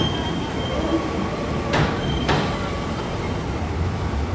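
Train crossing a steel railway bridge with a steady low rumble. A thin, high wheel squeal comes near the start and again about two seconds in, and two sharp clacks come about two seconds in.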